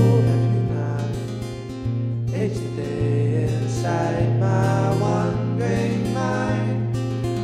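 Acoustic guitar song demo: strummed chords over sustained low bass notes.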